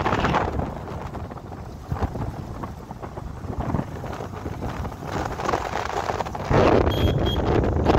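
Wind buffeting the microphone of a moving motorcycle, with engine and road noise; it grows louder about six and a half seconds in. A brief high beep sounds near the end.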